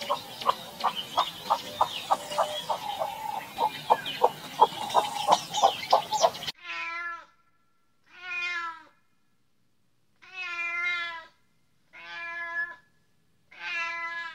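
A rapid run of short, sharp chirps, about three a second, over a noisy background. It cuts off abruptly about six seconds in, and then a domestic cat meows five times, each meow under a second, with silence between.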